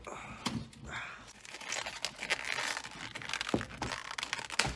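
Plastic shrink-wrap crinkling and tearing as a single serving is pulled out of a wrapped multipack, with a few sharp knocks.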